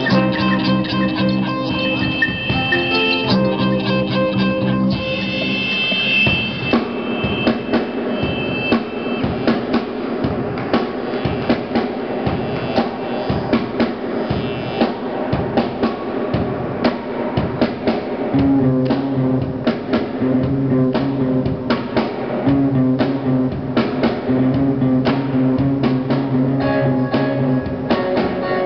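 Live rock band playing: electric guitars, keyboard and drum kit, with sustained chords and a steady drum beat.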